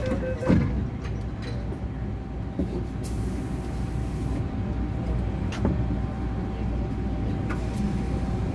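MTR M-Train doors closing with a thump about half a second in. Then the stopped train's steady low hum, with a constant thin whine and a few faint clicks.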